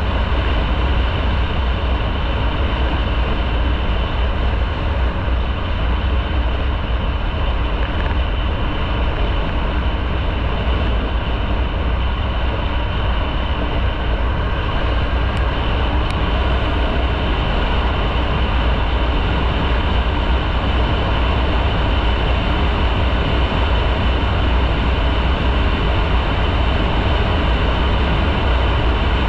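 Motorcycle under way at a steady speed: an even, unbroken rush of engine, road and wind noise with a heavy low rumble and no change in level.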